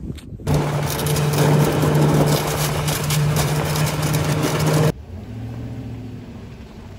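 Snowmobile engine running at a steady speed, with rushing wind and track noise, as it tows a loaded sled across lake ice; it cuts off abruptly about five seconds in, leaving a much quieter low hum.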